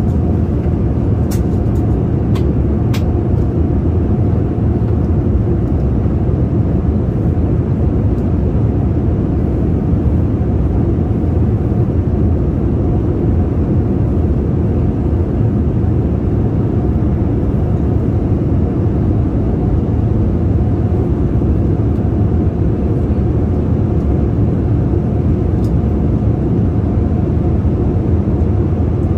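Steady cabin noise of a Boeing 787-9 Dreamliner in cruise: a deep, even rush of airflow and engine noise that does not change, with a few faint ticks in the first few seconds and one near the end.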